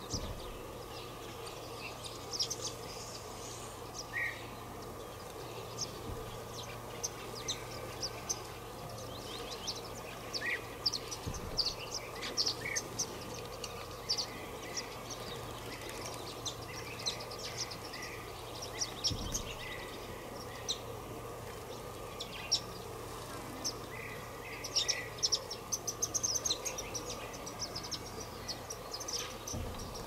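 Sparrows chirping: many short, quick chirps throughout, busiest near the end, over a steady low hiss.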